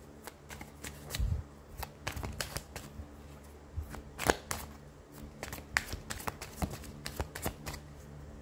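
A deck of oracle cards being shuffled by hand: a quick, irregular run of card flicks and slaps, the loudest about four seconds in.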